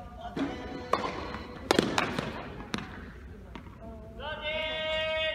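Tennis balls struck by racquets and bouncing on an indoor court in a short exchange: a handful of sharp pops that echo in a large hall. From about four seconds in, a long held note with many overtones, like a sustained voice, is heard.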